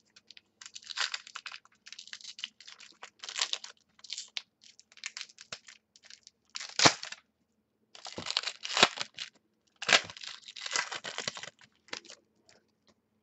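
Foil trading-card pack wrappers being torn open and crinkled by hand, in irregular rustling bursts, the loudest about seven seconds in.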